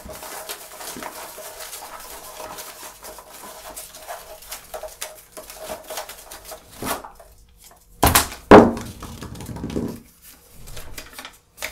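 Paper rustling and crackling as a hand rummages for a folded slip in a cloth hat. About eight seconds in comes a louder, rougher rustle as the slip is pulled out and unfolded.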